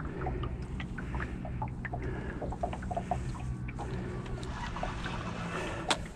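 Small irregular clicks and slaps of water against a boat's side over a low steady hum, with one sharp click near the end.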